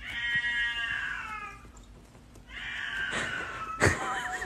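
A domestic cat meowing with two long, drawn-out calls, the first falling in pitch, while shut behind a closed door. Near the end a single sharp knock sounds.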